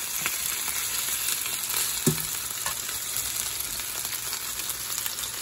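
Cubes of marinated beef frying in hot oil in a cast-iron skillet: a steady sizzle, with a few clicks of a utensil against the pan, the sharpest about two seconds in.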